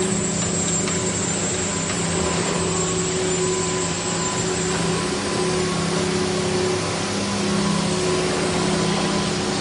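CMS Profile vertical CNC glass-working machine running: a steady mechanical hum with a low drone and a few faint steady tones over an even hiss.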